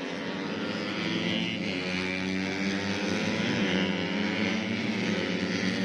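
Four-stroke 130cc underbone race motorcycle engines running at high revs, a steady droning engine note.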